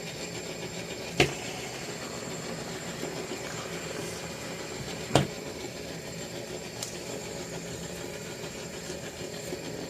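Fidget spinners whirring steadily on their ball bearings as they spin. Two sharp clicks stand out, about a second and about five seconds in.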